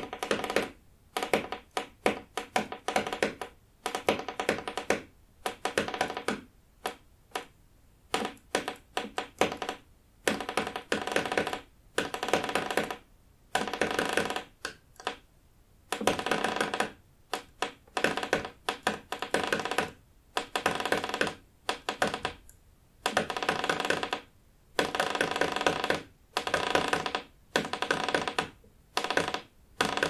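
Wood creaking over and over: each creak is a burst of fast crackling ticks lasting about a second, with short pauses between creaks.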